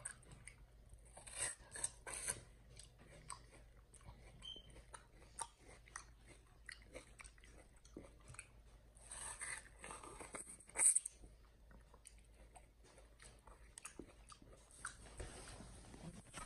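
Chimpanzee chewing and biting into watermelon flesh and rind, a close, wet crunching with many small clicks. There are louder bouts of biting about a second and a half in and again around nine to eleven seconds in, the sharpest bite near eleven seconds.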